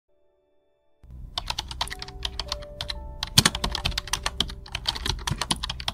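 Computer keyboard typing: a quick, uneven run of key clicks that starts about a second in.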